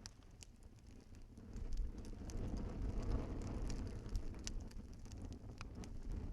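Wood fire burning in a fireplace: scattered sharp crackles and pops over a low rushing roar of flame that swells about a second and a half in.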